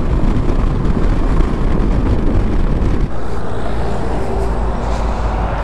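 KTM 390 Adventure at highway speed: engine note buried in a dense rush of wind and road noise. About three seconds in the sound changes to a steadier low rumble of heavy highway traffic, a truck going past.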